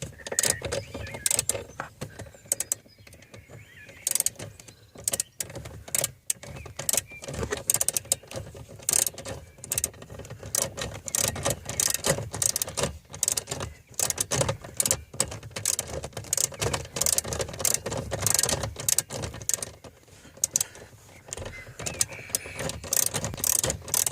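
Hand socket ratchet on an extension clicking in quick, irregular runs of short strokes with brief pauses, as a fastener is being undone.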